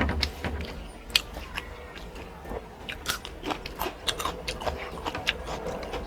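Close-up eating sounds: a person chewing and biting food, with irregular crisp clicks and crunches over a steady low hum.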